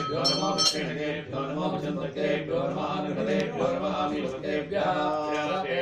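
Mantras chanted by a voice in a continuous recitation on a near-steady pitch. A ringing bell stops within the first second.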